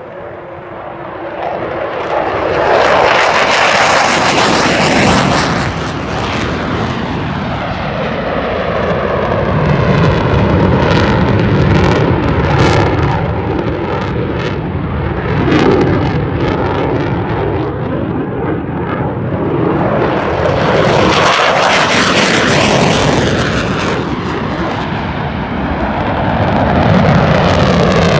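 F-16 fighter jet's engine running loud at takeoff and low climb, swelling in over the first few seconds. The roar sweeps in pitch with a phasing whoosh as the jet passes, and surges again near the end.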